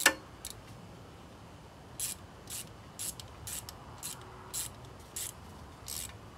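Hand socket ratchet clicking as a brake caliper bolt is tightened: one sharp click at the start, then about eight short ratcheting strokes, roughly two a second, from about two seconds in.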